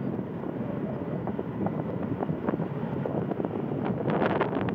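Wind buffeting the microphone: a steady low rumble with crackling gusts, strongest near the end.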